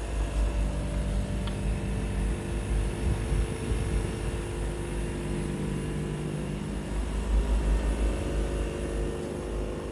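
Heat pump outdoor unit running in a higher operating mode, its compressor and fan giving a steady hum over a low rumble. The owner suspects the compressor may be noisier than it should be.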